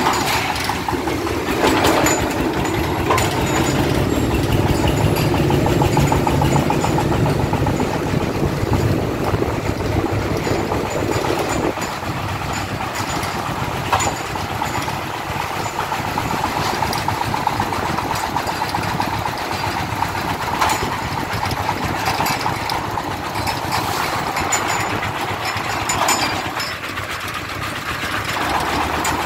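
A công nông farm truck's single-cylinder diesel engine chugging steadily as the truck drives along, heard from close behind. The low rumble eases about twelve seconds in.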